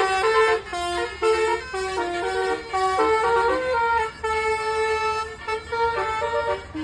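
Indonesian 'telolet' (basuri) multi-tone bus air horn playing a tune, quick notes stepping up and down with one longer held note in the middle, over a faint low engine hum.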